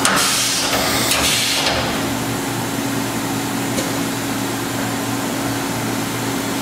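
LK Machinery TC-1200 CNC drill-tap center doing an automatic tool change with its arm-type tool changer: a few short hissing bursts with sharp starts in the first two seconds, over the steady hum of the running machine.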